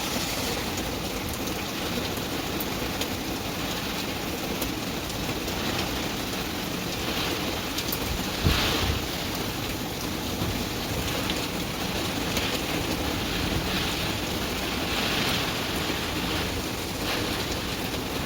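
Heavy typhoon rain pouring steadily while wind gusts swell and fade every second or two. A brief loud thump stands out about halfway through.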